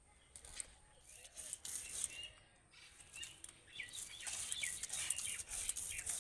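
Stone roller (nora) ground back and forth over mustard seeds on a flat grinding stone (shil), a gritty scraping that grows louder from about the middle on. Small birds chirp in the background.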